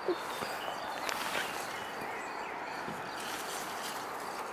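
Outdoor ambience around a fruit tree: a steady hiss with a few faint bird chirps, the clearest about a second in.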